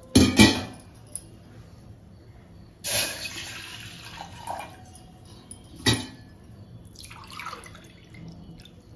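Water poured into an empty brass pot, a splashing pour that starts about three seconds in and fades out over a couple of seconds. A loud short clatter comes right at the start and a sharp clink about six seconds in.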